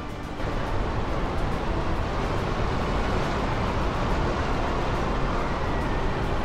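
Strong storm wind blowing across the microphone over waves breaking on the shore: a steady, rumbling rush of noise that starts suddenly about half a second in.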